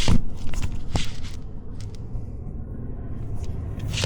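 Plastic under-dash trim piece being pressed down at its lock and slid off: a few sharp clicks and knocks, loudest at the start, about a second in and near the end, over a low steady rumble.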